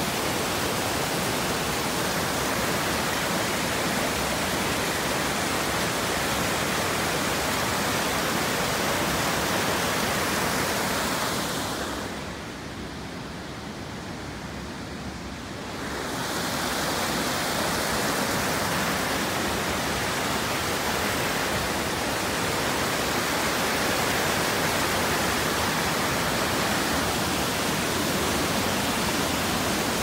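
Waterfall cascading over rocks, a steady rushing of water. It turns quieter and duller for about four seconds near the middle, then comes back full.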